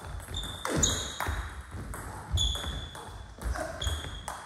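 Table tennis rally: the plastic ball clicks off the rubbers and bounces on the table, some hits ringing with a short high ping. Low thuds from the players' footwork on the floor come in between.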